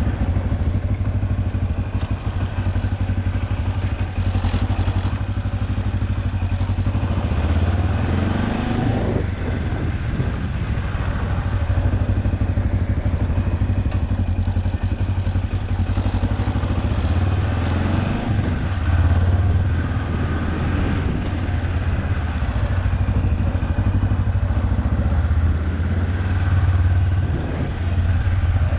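Kawasaki KLE 400 motorcycle's parallel-twin engine running steadily at low revs while riding, with the revs rising briefly twice, about eight and about eighteen seconds in.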